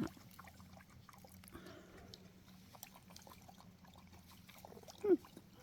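Faint scattered ticks and scratching from backyard chickens, then one short, low call from a hen about five seconds in, falling in pitch.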